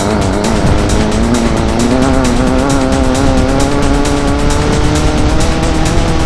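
Air-cooled VW Beetle flat-four engine pulling hard in a stock Class 11 desert race car, its revs wavering and then climbing steadily, over constant rattling and knocking.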